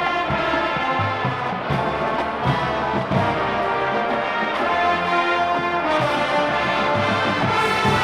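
Marching band playing: brass sustaining full chords over low drum strokes.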